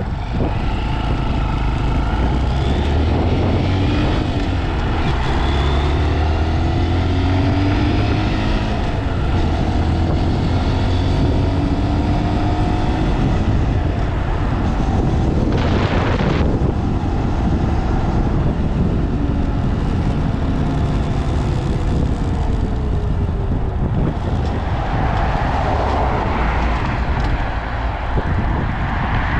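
Honda Monkey 125's single-cylinder engine running under way, its pitch rising and falling again and again with the throttle. Heavy wind buffets the microphone throughout, with a strong gust of noise about halfway through.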